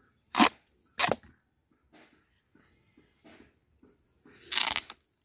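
A blade cutting through a large raw papaya: two short cuts about a second apart, a few faint scrapes, then a longer cut near the end, the loudest of them.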